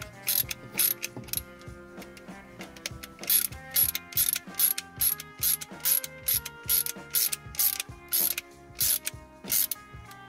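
T10 Torx screwdriver ratcheting in short bursts of clicks, two or three a second with a brief pause in between, as the small screws holding the shift logic button are driven in.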